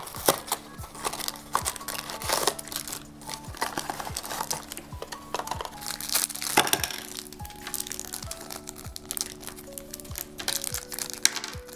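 Plastic wrapping and a cardboard toy box crinkling and rustling in irregular bursts as the packaging is opened by hand, over soft background music with a steady beat.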